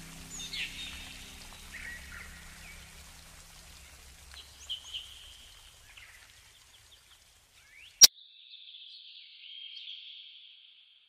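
Birds chirping over a faint outdoor background that fades away, with one sharp click about eight seconds in, followed by a short trill that dies out near the end.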